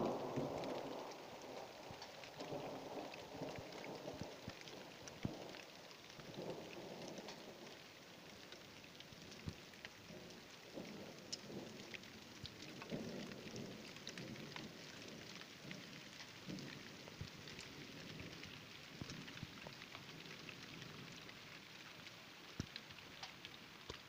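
Thunderstorm: rain falling, with many single raindrops ticking sharply, while thunder rumbles in repeated rolling waves. A louder rumble fades out in the first second.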